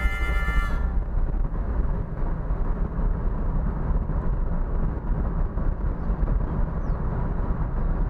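Music ends under a second in, giving way to the steady low engine and road noise of a vehicle driving along.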